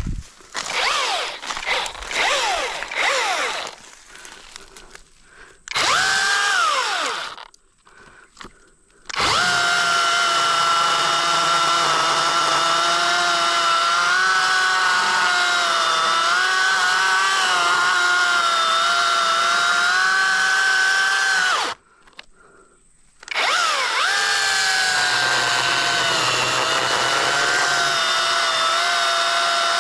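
Battery-powered electric chainsaw cutting the face notch into a large tree trunk. The motor first runs in short bursts, its pitch gliding up and down, then settles into long cuts with a steady whine whose pitch wavers slightly as the chain bites. It stops about two-thirds through and starts again a second and a half later.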